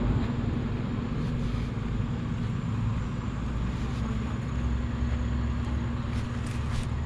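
Road traffic: cars and a bus driving past, a steady low rumble of engines and tyres with a constant hum underneath.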